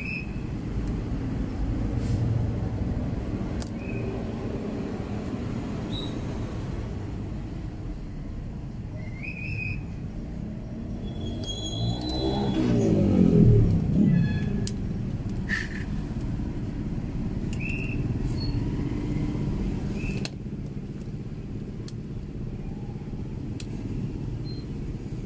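Steady low rumble of road traffic. It swells as a vehicle passes about halfway through, its engine pitch rising and then falling, and a few light clicks sound here and there.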